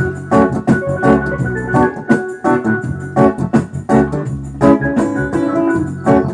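Instrumental reggae from a sequenced backing track: organ-like keyboard chords in short, regular stabs over a bass line.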